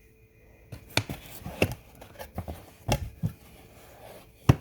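Hands handling headphone packaging: rustling with a series of sharp clicks and knocks, the loudest near the end.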